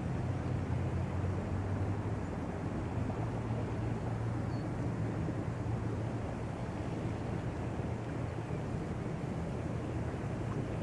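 Steady low rumble of background noise that holds at an even level, with no distinct events.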